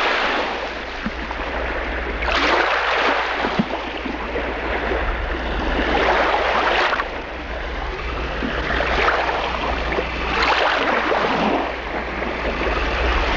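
A rushing noise that swells and fades several times, over a steady low hum.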